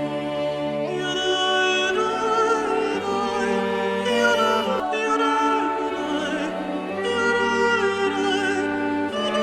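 Background music in a classical, operatic style: sustained chords that change every second or two under a wavering melody line.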